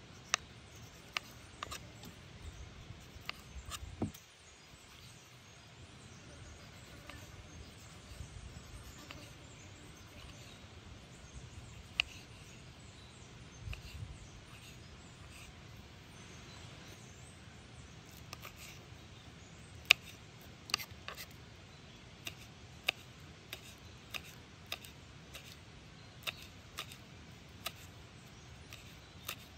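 Kitchen knife slicing a tomato and then a green chilli on a wooden chopping board: sharp taps of the blade meeting the board, a few scattered ones at first, then a steady run of chops about one to two a second from about two-thirds of the way in.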